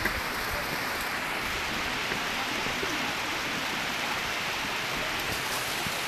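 Steady rushing of the Urach waterfall: an even, unbroken wash of falling water.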